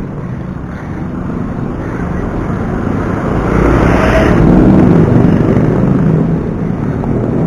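Road traffic noise: a motor vehicle passes close by, swelling to its loudest about halfway through and then fading.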